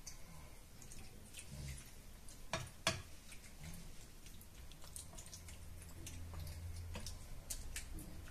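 Cooking spoon spreading tomato sauce over pasta in a glass baking dish: faint scattered clicks of the spoon against the dish, with two sharper clicks close together about two and a half seconds in.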